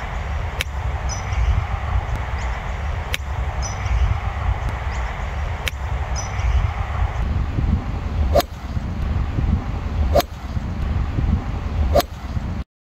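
Golf club striking the ball about six times, a sharp crack every two to three seconds, the last three loudest, over steady wind rumble on the microphone. The sound cuts off suddenly near the end.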